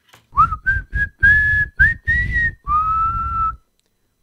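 A run of about seven short, breathy whistle notes. The pitch steps up from note to note, each note slides up quickly as it starts, and the run ends on one longer, lower note.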